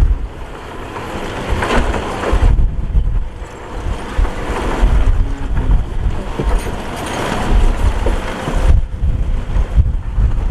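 Heavy diesel earthmoving machinery running, a deep rumble that swells and eases, with wind buffeting the microphone.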